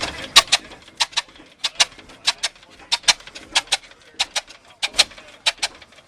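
Old stationary engine running, its mechanism clacking sharply in a steady double click, about one and a half pairs a second.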